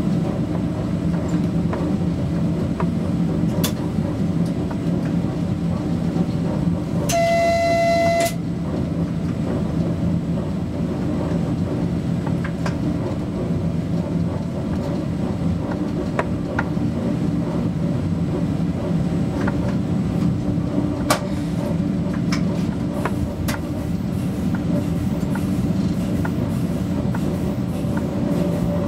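Steady running noise of a ČD class 340 electric locomotive heard inside its cab, with a low hum under the track noise and scattered sharp clicks from the rails. About seven seconds in, a single high signal tone sounds for about a second.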